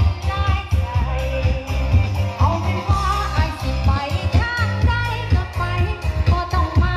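Live karaoke: a woman sings into a microphone over a pop backing track with a heavy, pulsing bass beat. The sound comes loud through a PA system with stacked BV 18-inch bass cabinets.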